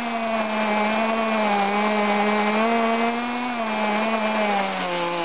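Small two-stroke engine of a radio-controlled car running fast with a steady high-pitched note that wavers a little and dips slightly near the end.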